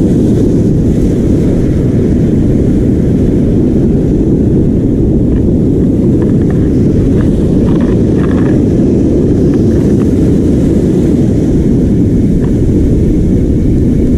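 Loud, steady wind rumble buffeting the action camera's microphone, mixed with the rush of breaking surf.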